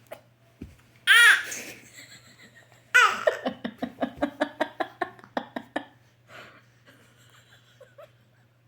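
Laughter: a loud high-pitched burst about a second in, then another burst near three seconds that runs into a quick series of rhythmic laughs, fading out about three seconds later.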